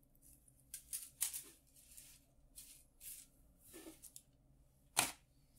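A thin metal chain bracelet clinking and rustling in a series of short light rattles as it is handled and laid on a wooden table, with one sharp click near the end.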